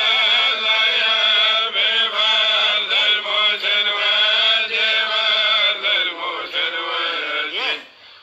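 A voice chanting in long, slowly wavering held phrases, pausing briefly near the end.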